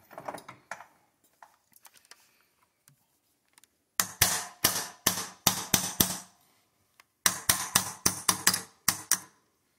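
Hammer tapping out a pin from a PSA AR-15 upper receiver, a run of quick, sharp metal strikes that ring briefly. After a few faint clicks, a burst of about six strikes comes four seconds in, and a longer run of about ten begins about three seconds later.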